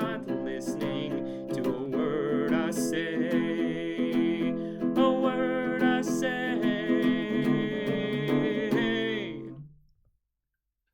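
Ukulele strummed with a voice singing over it, coming to the end of a song; the last chord fades away about nine and a half seconds in.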